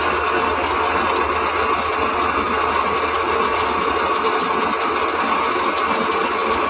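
Metal lathe running with a steady mechanical noise of motor and machining.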